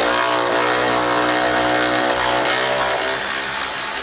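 Cordless electric ratchet with a 13 mm socket running steadily as it spins a bolt out of a bumper bracket.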